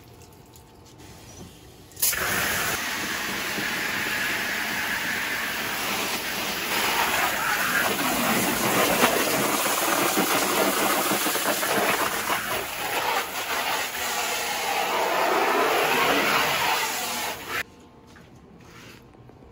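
Garden hose spray nozzle spraying water onto the vinyl of an inflatable hot tub, a loud steady hiss that starts abruptly about two seconds in and cuts off suddenly near the end. Its tone shifts as the spray moves over the surface.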